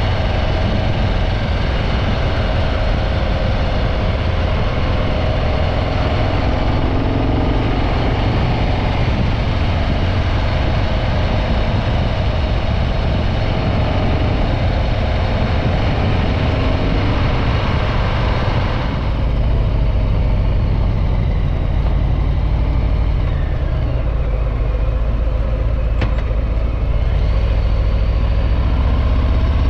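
Harley-Davidson Breakout 114's Milwaukee-Eight V-twin running on its stock exhaust while the bike is ridden, mixed with wind and road hiss. About two-thirds of the way through, the hiss drops away and the low engine note comes to the fore, as at a slow roll or idle.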